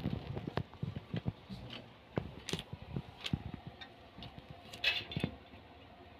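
Irregular light clicks and knocks of wooden toy pieces being handled on a toddler's activity cube, a few sharper knocks about five seconds in.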